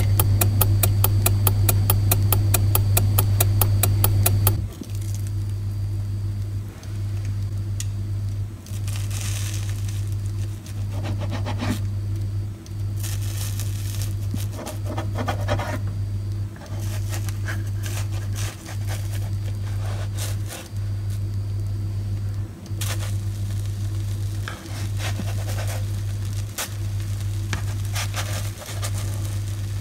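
Rapid clock ticking for the first four seconds or so. Then soft sizzling and a spatula scraping a non-stick frying pan as soufflé pancakes are turned, over a steady low hum that drops out briefly about every two seconds.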